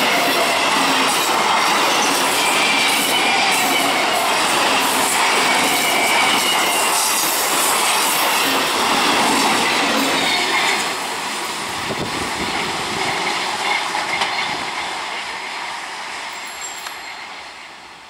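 EMU local train passing close at speed, wheels rumbling over the rails with a high squeal from the wheels on the curve. About ten seconds in the sound begins to fade as the last coaches go by, dying away near the end.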